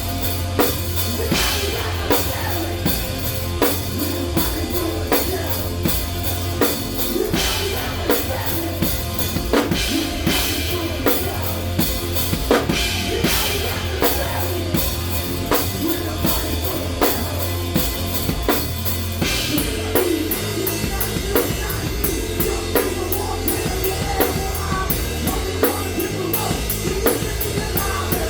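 A live rock band plays an instrumental passage led by drums, with steady kick and snare hits under distorted guitar and bass, and cymbals getting busier near the end.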